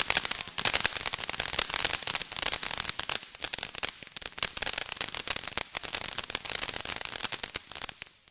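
Fireworks crackling: a dense, rapid run of sharp pops and crackles that stops abruptly just before the end.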